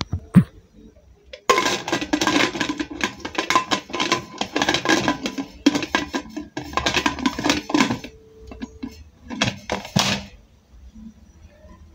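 Metal clattering and scraping from an aluminium pressure cooker being handled by its lid handle, with a dense run of knocks and light ringing and a shorter burst near the end.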